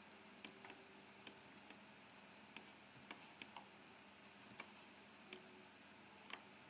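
Faint, irregular clicks of a computer mouse and keyboard, about a dozen over several seconds, against near-silent room tone.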